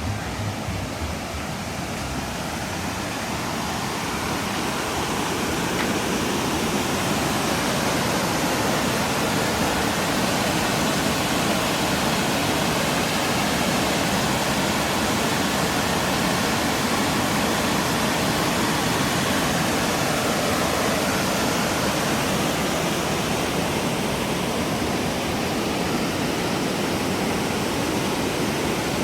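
Waterfall: a steady rush of falling water that grows slightly louder over the first few seconds, then holds even.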